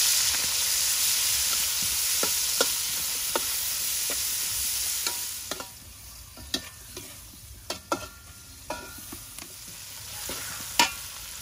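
Chopped shallots, garlic and green onion sizzling in a metal wok, with a metal spatula scraping and clinking against the pan as it stirs. The sizzle drops much quieter a little past halfway, leaving mostly scattered spatula clicks.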